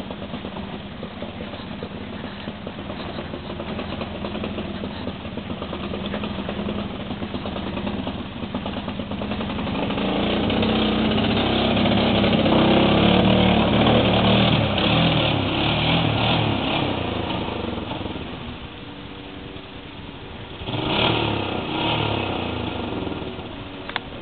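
ATV engine running and revving, growing louder towards the middle, then fading, with a short burst of revving near the end.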